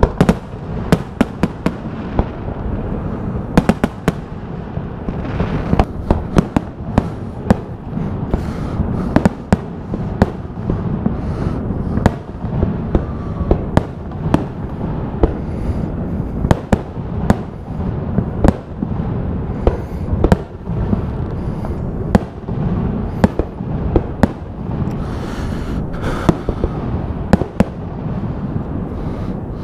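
Fireworks display: aerial shells bursting in a rapid, irregular run of sharp bangs over a steady low rumble. Near the end comes a burst of hissing crackle.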